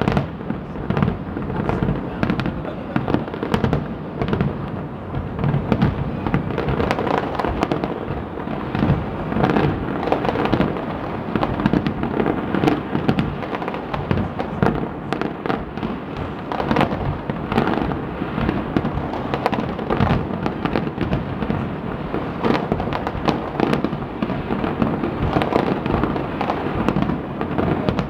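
Fireworks display going off in a dense, continuous barrage of booms and sharp cracks, one burst overlapping the next.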